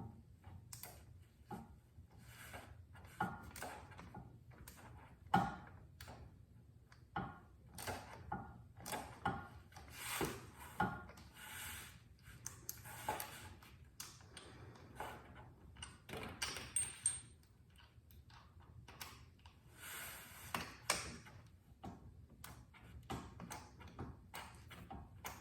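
Hand tools on motorcycle bolts: a ratchet torque wrench clicking and rasping as it turns, with sockets and metal parts clinking, in irregular clicks and short rasps.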